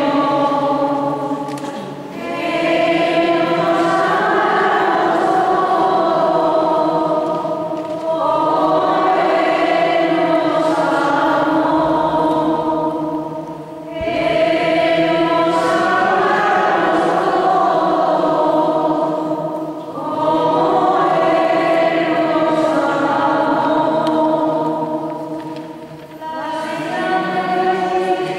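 A group of voices singing a slow church hymn, in long held phrases of about six seconds with a short dip between them.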